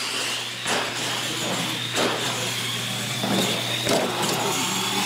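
Two radio-controlled monster trucks racing flat out side by side: a high electric motor and gear whine that rises at the launch and then holds steady, with several sharp knocks as the trucks bounce and land.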